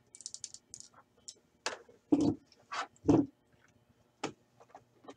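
Handling noise at a desk: a quick run of light clicks in the first second, then a handful of separate dull knocks and bumps, the loudest about two and three seconds in.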